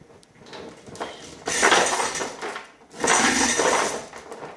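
Metal hoist chain rattling and clinking in two long bursts as a heavy anvil is lowered on the hoist.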